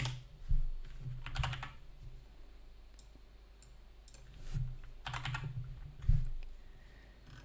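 Scattered computer keyboard keystrokes and clicks, a few at a time with pauses between, over a low steady hum.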